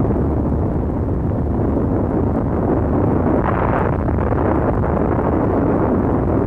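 Long, steady rumble of a large explosion, with a brief brighter swell about three and a half seconds in.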